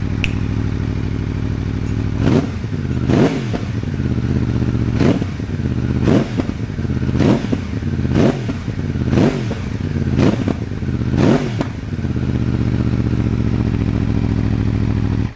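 2019 Aprilia Tuono V4 1100 Factory's V4 engine on its stock exhaust, idling and then blipped in about nine short revs roughly a second apart before settling back to idle.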